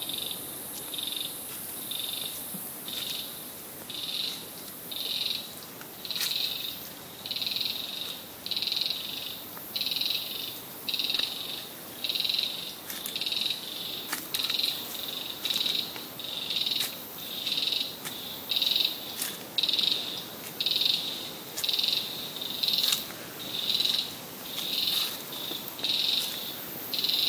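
A small animal's high-pitched call in a forest, a short buzzing note repeated steadily about once every 0.8 seconds, with a few faint clicks between.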